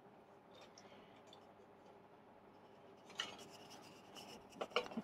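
Faint rubbing and handling of a small wooden box turned in the hand, with a couple of brief, sharper rubs about three seconds in and just before the end.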